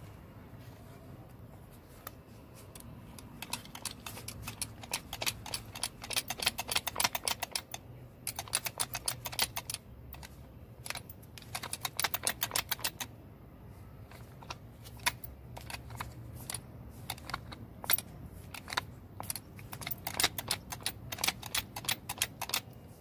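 Runs of quick small clicks from a removed car starter motor as its pinion drive is turned by hand, the overrunning clutch ratcheting; several bursts of a few seconds each with short pauses between.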